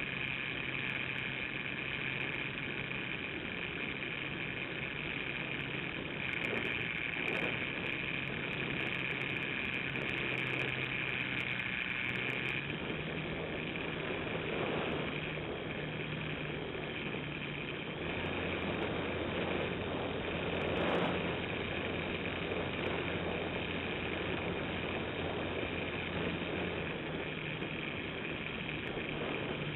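A radio-controlled model airplane's motor and propeller droning steadily in flight, heard through the onboard camera's microphone along with wind rush; the pitch steps up and down a little a few times as the throttle changes.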